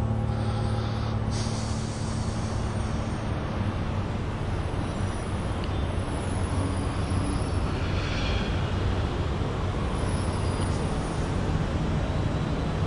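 Steady rushing noise of road traffic. The low notes of a music cue fade out in the first two seconds.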